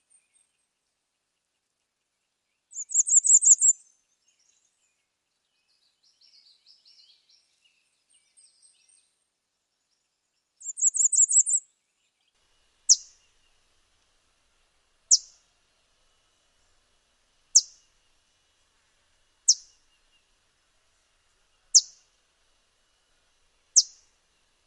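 Bay-breasted Warbler singing its extremely high-pitched, squeaky-wheel song, a rapid run of about a second, twice. After some faint twittering, a series of six single sharp, high call notes follows, about two seconds apart.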